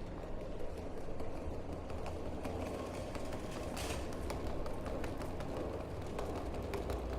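City street ambience: a low, steady rumble with many quick, irregular clicks and taps running through it, and a short hiss about four seconds in.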